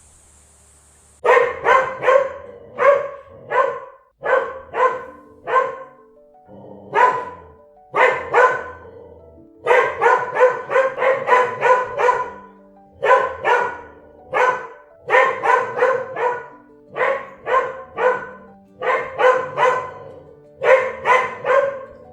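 A dog barking over and over in quick runs of several barks each, starting about a second in.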